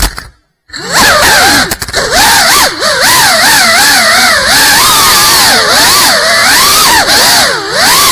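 GEPRC CineLog 35 FPV cinewhoop's brushless motors and ducted propellers whining, the pitch swinging rapidly up and down as the throttle is worked. The sound cuts out briefly just after the start.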